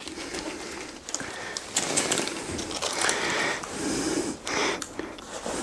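A man breathing hard while bent over his work, with light scraping and rustling as self-adhesive sealing tape is pressed along the edge of an attic ladder frame.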